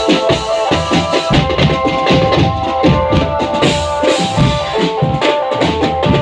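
Marching drum band playing: rapid, steady drum strokes from snare, tenor and bass drums under a melody of held notes.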